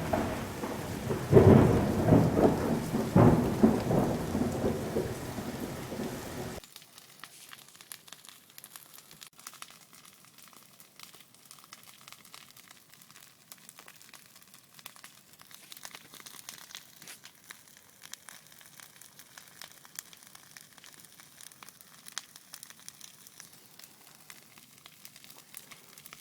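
Loud, low, thunder-like rumbling with several booming swells that cuts off abruptly after about six seconds. Then a campfire crackles faintly, with scattered pops.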